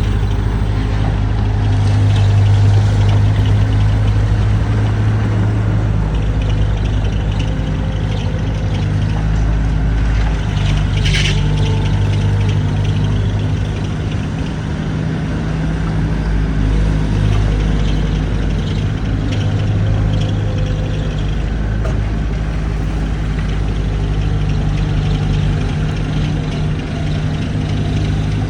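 A heavy machine's engine runs steadily, its pitch shifting a little now and then as it works. About eleven seconds in there is a brief hiss.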